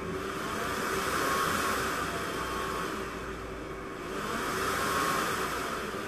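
12-volt computer fan, used as a fume extractor, blowing air on a variable-speed controller. It speeds up in the first second or so, slows down about three to four seconds in, then speeds up again as the controller's knob is turned.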